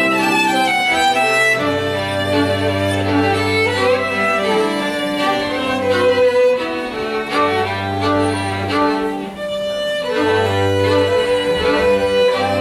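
A live string ensemble of two violins, viola, cello and harp playing an arranged piece. The violins carry the tune over long held low cello notes.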